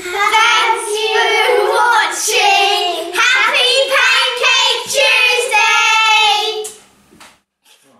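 A group of children singing together in a run of held notes, ending suddenly about seven seconds in.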